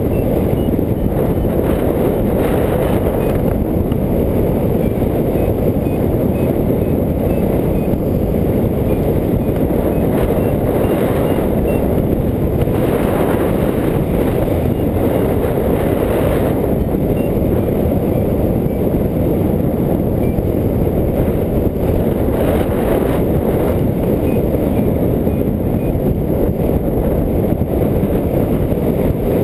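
Strong wind rushing and buffeting over the microphone of a camera flying on a hang glider: a loud, steady low rush.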